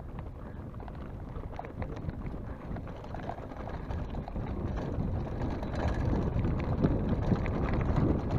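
Mountain bike rolling over a loose, rocky dirt track: tyres crunching on stones and the bike rattling with many small knocks, with wind rumble on the microphone. It gets louder toward the end as the ride speeds up or the ground gets rougher.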